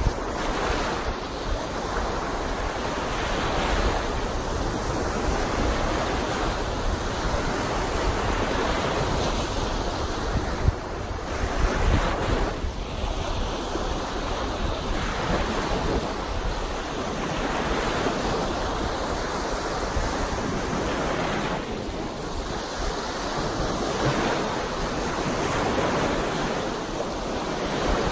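Choppy lake waves breaking in rows and washing up a sandy shore, a continuous rush of surf that swells and eases with each set. Low wind buffeting on the microphone runs under it.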